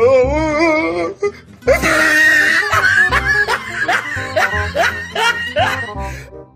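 Meme soundtrack music with a steady low beat. About the first second has a wavering held voice, then a quick run of rising, laughing cries over the music that fades out near the end.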